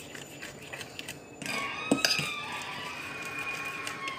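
A metal spoon stirring thick cake batter in a bowl, with a sharp clink against the bowl about two seconds in. A faint steady tone runs beneath it through the second half.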